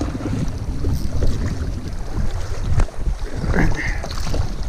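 Wind buffeting the microphone in a steady low rumble, with a few sharp knocks while a small hooked bass is reeled in to the shore. Near the end the bass splashes at the surface.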